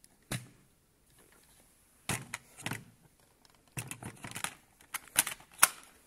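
Hard plastic clicks and clunks as the clear dust bin of a Dyson upright vacuum is handled and clipped back onto the machine, with the motor off. The clicks come in short clusters, the sharpest near the end.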